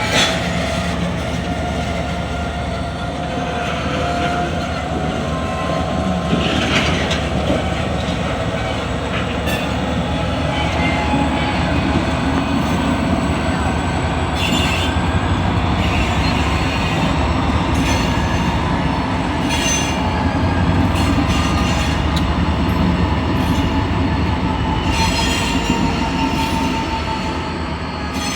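Kansas City Southern diesel locomotives and railcars moving during switching: a steady low diesel rumble with drawn-out wheel squeal and occasional sharp clanks from the cars.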